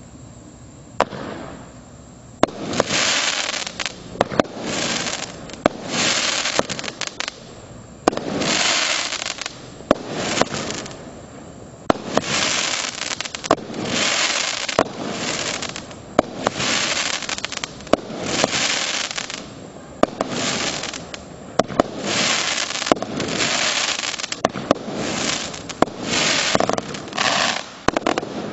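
Astra Apocalypse firework barrage firing shot after shot, about one a second from a second in. Each shot is a sharp bang followed by about a second of crackling as its stars burst.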